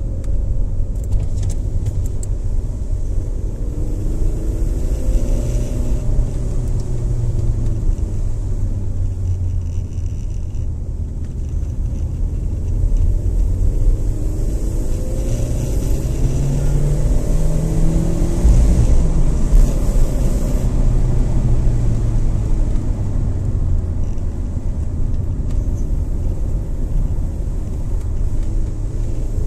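Car driving, heard from inside the cabin: a steady low engine and road rumble, with the engine note rising and falling several times as the car speeds up and slows on the bends.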